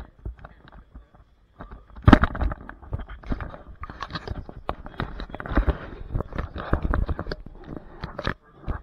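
Handling noise from a handheld camera: irregular rubbing, rustling and knocks against the microphone, the loudest knock about two seconds in.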